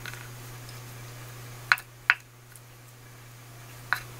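Kitchen knife slicing through soft buckwheat jelly and knocking on a wooden cutting board: three sharp taps, two close together in the middle and one near the end.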